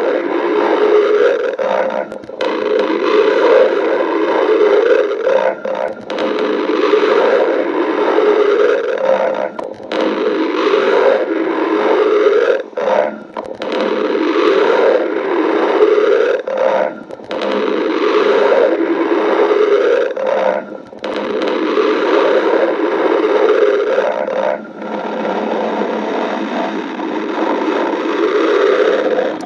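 A person's stomach growling, recorded close up and loud: long churning gurgles broken by brief pauses every few seconds.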